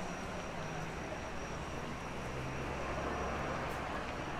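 Street ambience dominated by the steady low rumble of a vehicle engine in traffic, swelling a little in the middle, over the general hum of the city.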